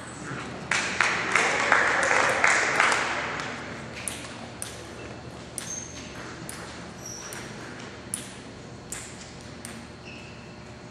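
Table tennis ball clicking off bats and table as a rally ends, then audience applause for about two seconds. Scattered single ball clicks and a few short squeaks follow.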